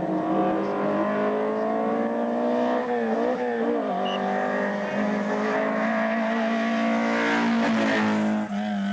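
Group A hatchback race car's engine at full throttle up a hillclimb, its note rising through the gears with a brief drop about three seconds in and another near the end as it passes close by.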